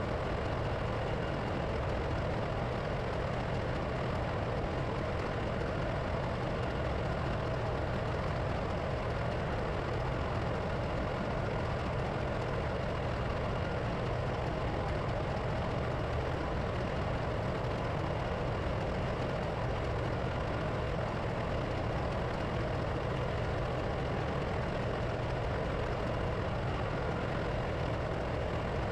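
A steady, unchanging drone of running diesel machinery in a ship's engine room, with a strong low rumble.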